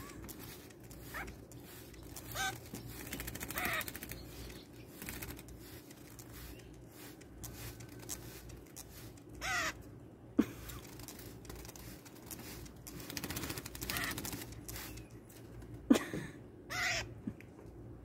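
Young grackle giving short, harsh calls every few seconds, with a couple of sharp knocks in between.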